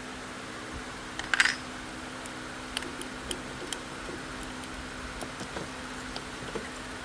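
Hand tools clicking and clinking on a car battery terminal as the battery cable is loosened: one sharp metallic clatter about a second and a half in, then scattered light clicks over a steady low hum.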